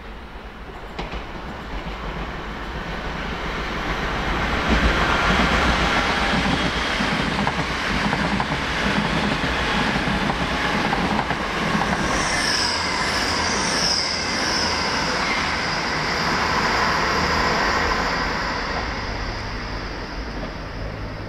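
Two coupled Class 365 electric multiple units running through at speed: a rising rush of wheels on rail with a rhythmic clatter of the bogies over rail joints, then a high steady whine from about twelve seconds in that lingers as the train fades away.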